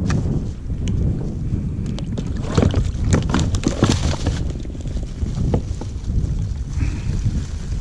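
Wind buffeting the microphone on a kayak at sea, a steady low rumble, with a cluster of short knocks and clicks in the middle.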